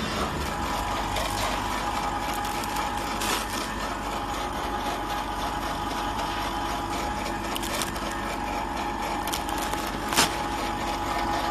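Multi-snack packaging machine running: a steady mechanical hum with a constant whine. A few sharp clicks cut through it, the loudest about ten seconds in.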